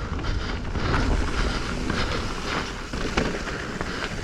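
Mountain bike, a Specialized Stumpjumper Evo Alloy, rolling down dirt singletrack: tyres on the trail, the chain and frame rattling with scattered clicks over the bumps, and wind rumbling on the microphone.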